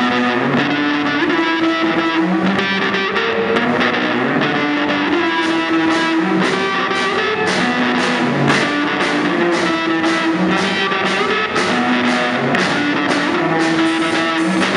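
Live instrumental rock: an electric guitar plays a melodic line over a drum kit, with the drum and cymbal hits coming regularly from about five seconds in.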